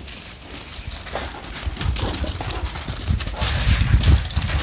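Heavy paws of a Great Dane and a Great Dane mix crunching and thudding on ice-crusted snow as the dogs romp and run. The footfalls are irregular and grow louder and busier over the second half.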